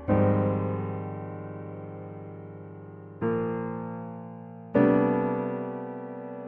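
Slow, calm piano music: three chords struck one after another, each left to ring and fade away.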